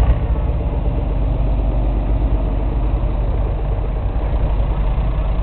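Tractor engine running steadily, a low, even rumble.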